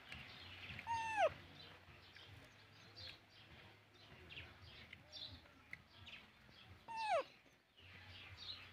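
A baby macaque gives two short, high cries that fall in pitch, about six seconds apart, with faint high chirps in between.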